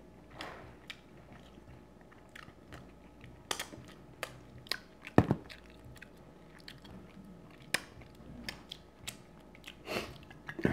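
Close-miked chewing and biting of crab and shrimp in butter sauce, with scattered sharp wet clicks and smacks.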